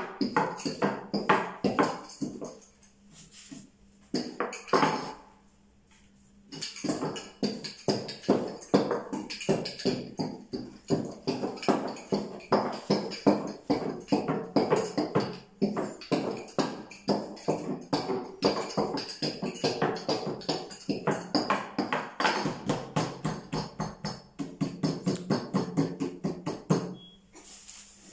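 Background music led by fast, rhythmic tambourine-like percussion, with a short quieter break a few seconds in.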